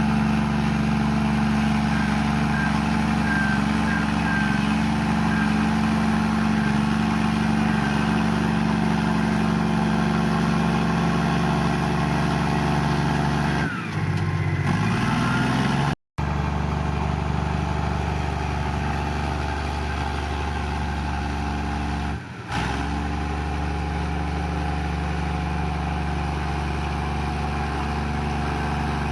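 Komatsu bulldozer's diesel engine running steadily under load, its pitch sliding briefly about 14 seconds in. The sound breaks off sharply twice, about 16 and 22 seconds in.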